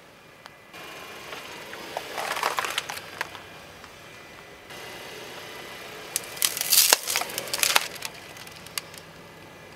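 Car tyre rolling over and crushing brittle objects. A stretch of crackling comes about two seconds in, then a cluster of loud, sharp cracks and snaps between about six and eight seconds in.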